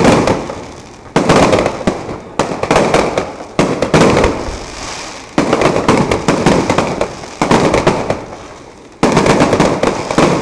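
Fireworks display: shells bursting one after another, about seven times, each a sudden loud bang followed by dense crackling that dies away over a second or so.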